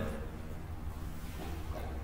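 Quiet room tone with a low steady hum.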